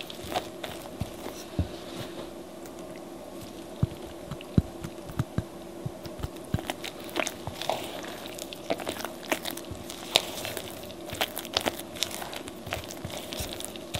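Silicone spatula folding and scraping thick pound cake batter in a glass bowl: irregular soft squelches, with clicks and taps where the spatula knocks against the glass.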